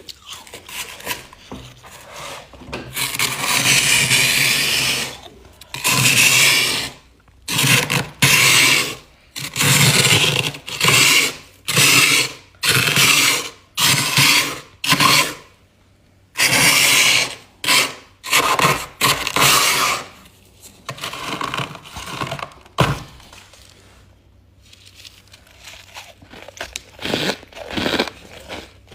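Frost build-up inside a freezer being scraped off: a long rasping stroke, then a run of short scrapes about one a second, fading to lighter scratching later on.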